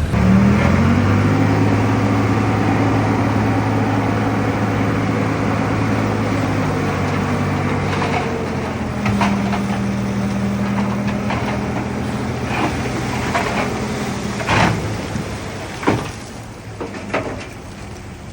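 Heavy diesel engine of earthmoving machinery revving up and then running steadily under load. Three sharp clanks come near the end as the engine sound fades.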